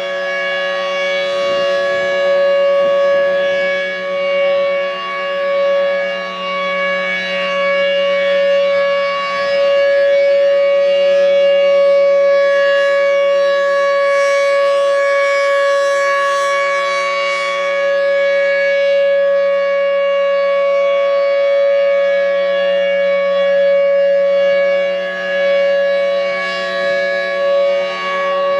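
Federal Signal Thunderbolt 1003 rotating warning siren sounding a steady alert: one held, unwavering tone rich in overtones, swelling and fading in loudness every few seconds as the rotating head sweeps past.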